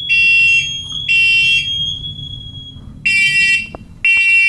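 Hardwired, interconnected smoke alarms sounding on a held test button: loud, high-pitched half-second beeps in the three-beep pattern, two beeps, a pause of about a second and a half, then two more. A steady high tone runs underneath and fades out about halfway through.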